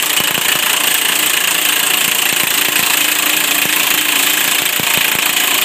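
Pneumatic impact wrench running continuously, driving the spindle of a truck airbag fitting tool to compress a suspension airbag, a steady hiss with a rattle of rapid knocks beneath it.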